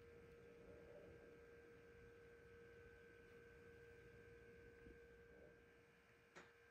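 Near silence: a faint steady hum, with one soft click near the end.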